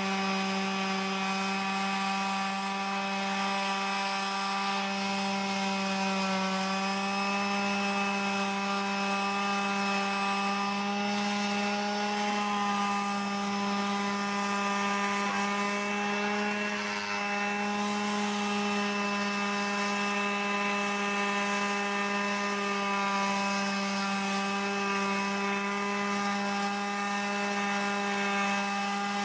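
Porter-Cable 380 quarter-sheet palm orbital finish sander running steadily, its sandpaper pad rubbing over a weathered wooden deck rail. The motor gives a constant buzzing hum under the gritty sanding noise.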